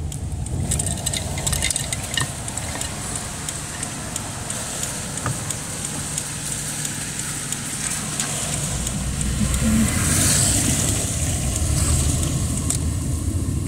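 Car driving on a wet road, heard from inside the cabin: steady engine and road rumble under a high tyre hiss, with scattered light ticks. The hiss and rumble grow louder about nine seconds in.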